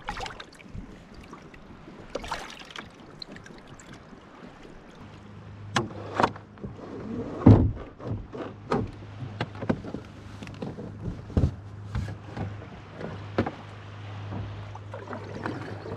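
Hobie Tandem Island sailing kayak moving through calm water: water lapping at the hull and amas, with irregular knocks and splashes that come thicker in the second half, the loudest about seven seconds in. A low steady hum sets in about five seconds in.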